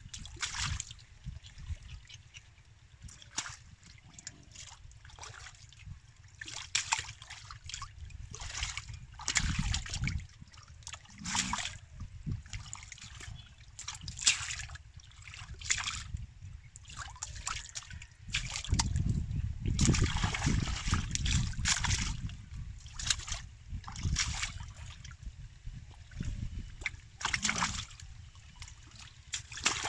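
Irregular splashing and sloshing in shallow muddy water as a large catfish is grabbed and held by hand and thrashes. A few seconds of heavier low rumbling come a little past the middle.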